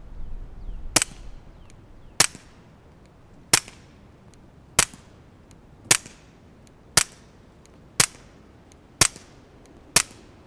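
Nine suppressed .22 LR subsonic shots from a Sig Sauer 1911-22 pistol fitted with a Dead Air Mask suppressor, about one a second, each a short sharp pop with no supersonic crack. The shooter heard no first-round pop.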